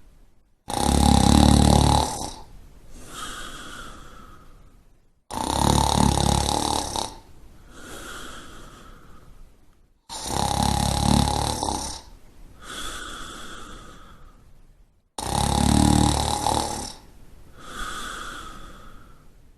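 Snoring in a steady rhythm: four loud snores about five seconds apart, each followed by a softer breathing sound before the next.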